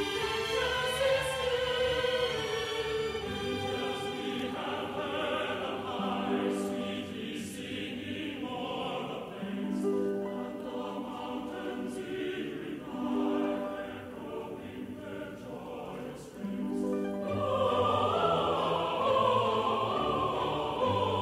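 Background music: classical choral singing with orchestra, in long sustained notes, swelling louder and fuller about 17 seconds in.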